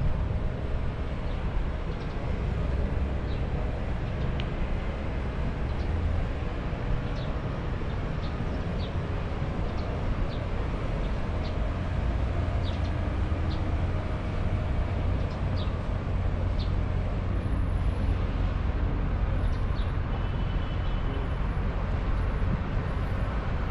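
Busy city street ambience: a steady, unbroken rumble of road traffic, with faint short ticks recurring about every half second.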